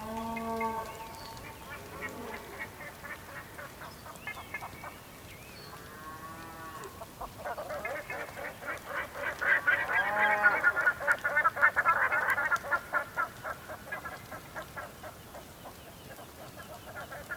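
Cattle calling in short, pitched moos. About seven seconds in, a flock of birds starts up in a dense chatter of quick calls that is loudest around ten to twelve seconds and then eases off.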